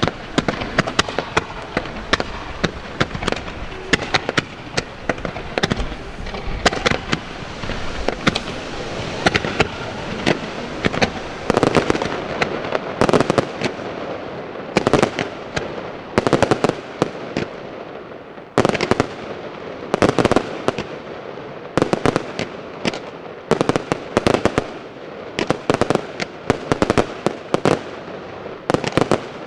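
Aerial fireworks display: a dense run of shell launches and bursts with crackling. From about twelve seconds in, louder separate bangs come about once a second.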